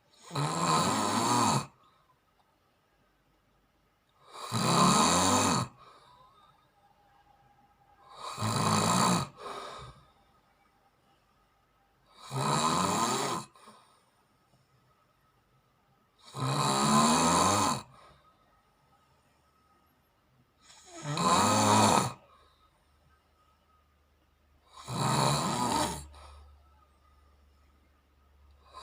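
A sleeping person snoring in a regular rhythm: seven snores about four seconds apart, each lasting a second or so, with quiet breathing gaps between.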